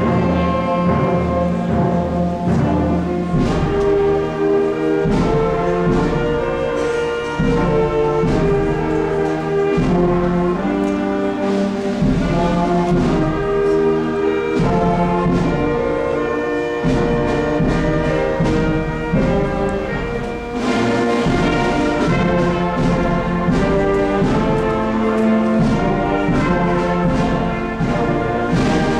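Orchestral music led by brass, trombones and trumpets, playing held chords and a moving melody throughout, with a short drop in loudness about two-thirds of the way in.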